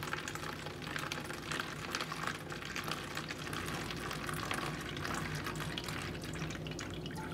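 Vinegar poured in a steady stream from a plastic measuring cup into an empty plastic 2-liter bottle, filling it.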